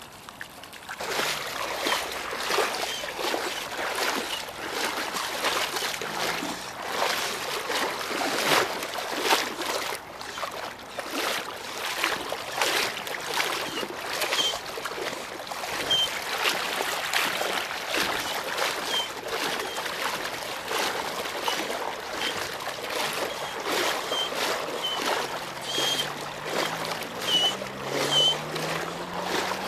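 A person wading through floodwater, each stride splashing and sloshing in a steady run of irregular splashes.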